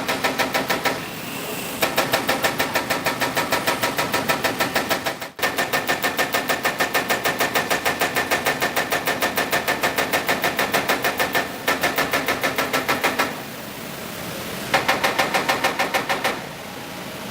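CNC turret punching machine punching sheet metal in rapid, even strokes, about six a second, in runs broken by short pauses.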